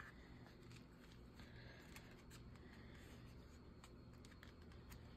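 Near silence: faint paper rustling and light ticks as hands press a glued paper cutout flat onto a collage page, over a low steady room hum.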